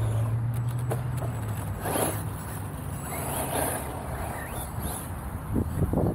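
Radio-controlled short-course truck driving over dirt and grass, its motor and tyres heard, with rougher bursts of noise near the end. Birds call faintly in the middle.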